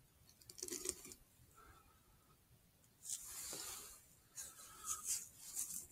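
Faint breathy hissing and rustling close to the microphone, coming in short bursts: one about half a second in, a hiss lasting about a second around three seconds in, and a few more near the end.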